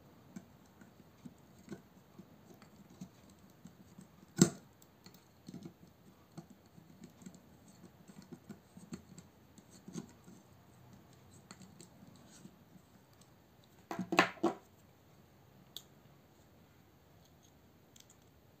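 Handling noise as a paracord lanyard is untied and pulled off a folding knife: faint rustling with scattered light clicks, one sharp click about four seconds in, and a short run of louder clicks around fourteen seconds.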